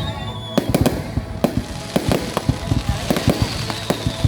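A fireworks display with many sharp bangs going off in quick, irregular succession, and a high thin whistle sliding slowly down in pitch behind them.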